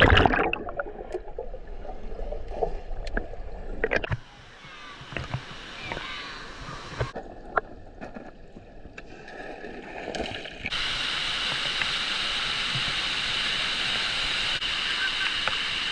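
Water splashing and gurgling, with scattered knocks and a low rumble in the first few seconds. About eleven seconds in, it switches abruptly to the steady, even rush of a waterfall.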